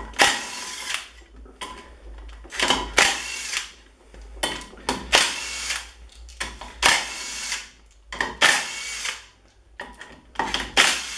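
A power driver runs in about six short bursts, each under a second and roughly two seconds apart. It is backing out the 13 mm bolts of a BMW E36 differential side cover.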